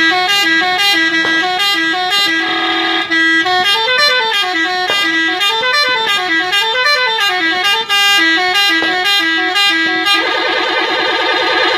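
SCH-721 electronic musical horn playing a run of stepped melody notes, with rising-and-falling siren-like wails in the middle, then switching to a steady buzzing tone about ten seconds in.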